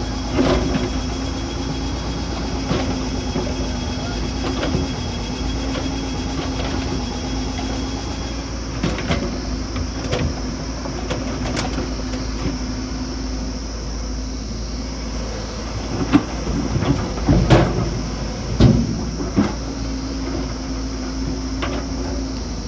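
Heavy earthmoving machinery running: a steady diesel engine drone with scattered metallic clanks and knocks, the loudest coming in a cluster a few seconds after the middle.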